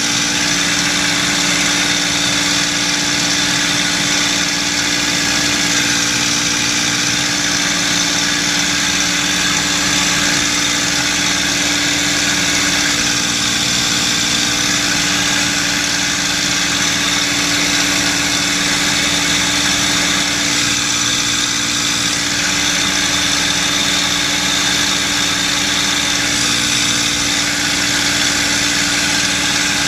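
P-51D Mustang's Packard Merlin V-12 engine and propeller droning steadily in cruise flight, heard from inside the cockpit with a constant rush of wind over the canopy.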